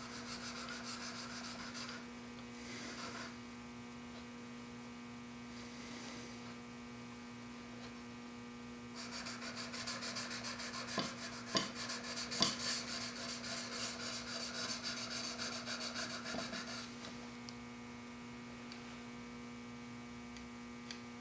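Back of a Japanese chisel rubbed flat on a DMT diamond sharpening plate to knock off the burr from honing. Light scraping near the start, then a longer run of quick short strokes with a few small clicks through the middle, over a steady electrical hum.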